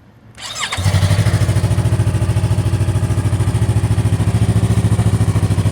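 2017 Yamaha R3's 321 cc parallel-twin engine cranked by the electric starter with a brief rising whine, catching under a second in and then idling steadily, started through a toggle-switch ignition bypass.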